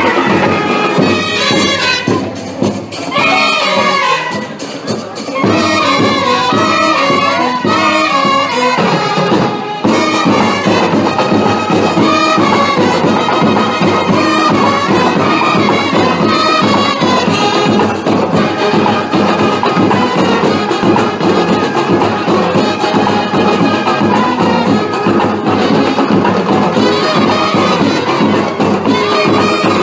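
Music with a wavering melody line, growing fuller and more even about ten seconds in.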